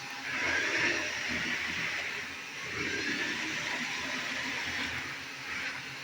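Remote-control inflatable Stitch toy's drive motors running as it rolls across the floor, over the steady hum of its inflation blower fan. The motor noise comes in at the start and swells twice.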